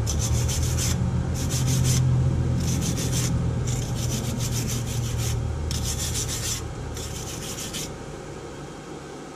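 Hand wire brush scrubbing rust off a GM 14-bolt rear axle housing, in six even back-and-forth strokes about a second apart.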